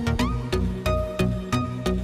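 Background electronic music with a steady beat, about three beats a second, over bass notes and short sliding synth notes.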